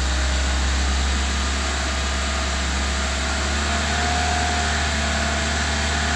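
Chevrolet Niva engine held at raised revs, running steadily with a tone that rises slightly partway through. It is revved after long winter storage to clear a knock from under the valve cover, which the owner blames on too-thin synthetic oil that drained down while the car stood.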